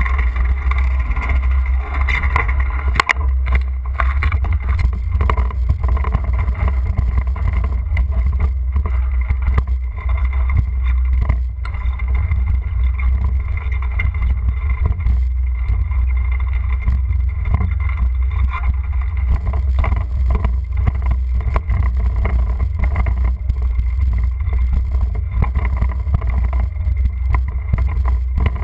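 Bicycle ride heard through a bike-mounted GoPro: a loud, steady low rumble of wind and road vibration on the camera's microphone, with scattered small knocks and rattles from bumps in the pavement.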